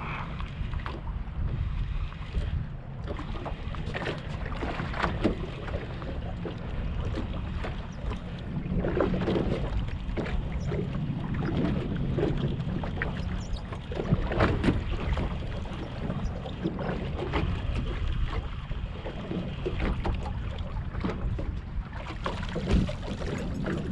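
Water slapping against a small boat's hull while wind buffets the microphone with a steady low rumble, with scattered short knocks throughout.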